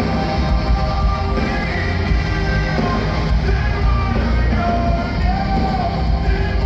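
Live rock band playing through an arena PA, heard from high in the stands: sung vocal lines held over guitars, bass and drums, with heavy low end.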